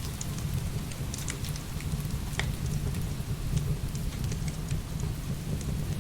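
Heavy rain pouring steadily with a deep low rumble, mixed with the scattered sharp pops and crackles of burning firewood, one louder crack a little before the middle.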